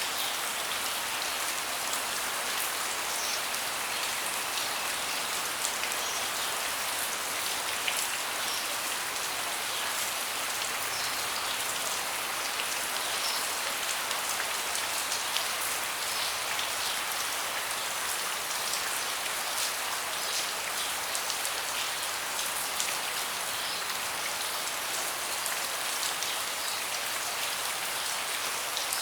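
Steady rain falling on a deck, with many fine, close drop ticks over an even hiss.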